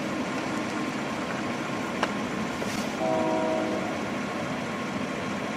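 An approaching diesel freight train rumbling steadily in the distance, with its locomotive air horn sounding one short blast of several notes together about three seconds in.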